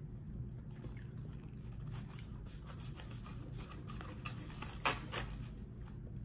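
Soft scratching and rubbing as food is handled at the table, with scattered light clicks and one sharper click about five seconds in.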